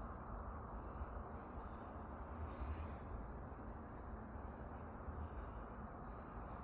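A steady high-pitched insect trill, crickets, over low background noise.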